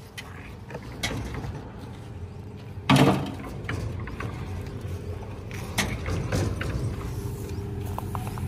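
Steel mould of a precast concrete wall-panel machine being handled: a few metallic knocks, with one loud bang about three seconds in, over a low steady rumble.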